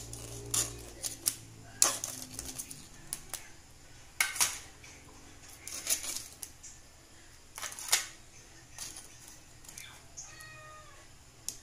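Kitchen tongs clacking and knocking against a wok and the shells of boiled blue crabs as the crabs are turned. The sharp clicks come irregularly, a few at a time, every second or two.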